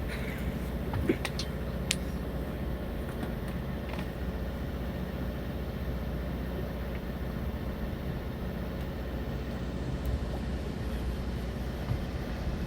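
Fishing boat's engine running steadily, a low even hum, with a few faint clicks about a second in.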